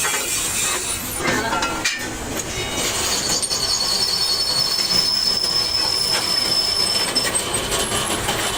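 Metalworking on a steel truck rim: a steady harsh grinding noise of metal on metal, with a thin high-pitched squeal held through the middle.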